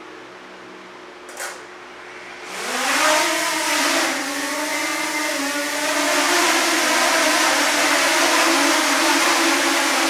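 DJI Mini 2 drone's motors and propellers spinning up about two and a half seconds in, a rising whine that wavers and then settles into a steady buzzing hover. Beneath it is a steady hum, and there is a single click just over a second in.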